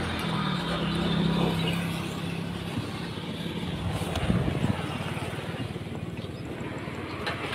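Air-cooled motorcycle engine idling steadily.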